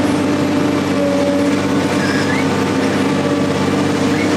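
An engine running steadily at a constant speed, with an even hum and no change in pitch.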